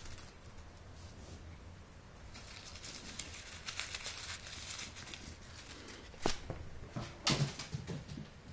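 Crumpled paper ball crinkling as it is squeezed and handled in a hand, followed by two sharp knocks about a second apart, the second the loudest.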